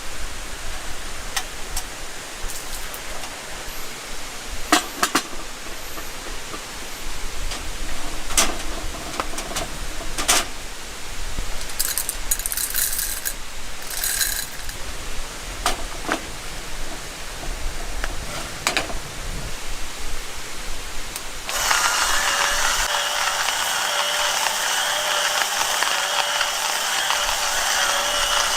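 Rain falling, a steady hiss with scattered sharp drops and taps. About 21 seconds in, it switches abruptly to a louder, denser patter that holds steady.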